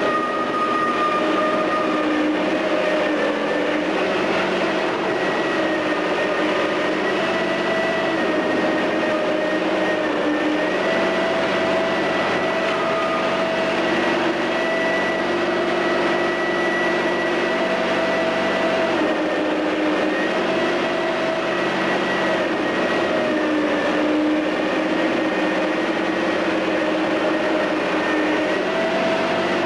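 Menck M260 cable-operated crawler excavator working: its diesel engine and drive run steadily under load, with a whine that steps up and down in pitch every few seconds.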